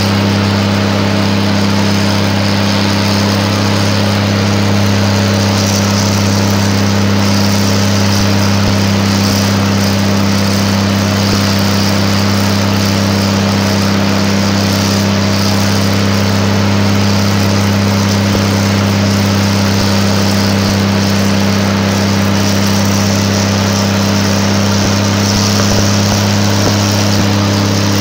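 Cummins diesel engine of a GE 80-ton center-cab switcher locomotive running hard at a steady high throttle, a loud unbroken drone at close range to its exhaust stack. It is the only one of the locomotive's two engines still working, the other having failed, so it carries the whole train.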